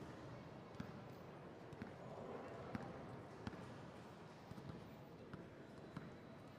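Basketballs bouncing on a gym floor: scattered single thuds, about one a second, over a faint murmur of voices.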